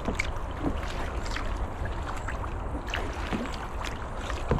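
Kayak paddling on a calm river: paddle blades dipping and dripping, with small irregular splashes and water lapping against the hull, over a steady low rumble.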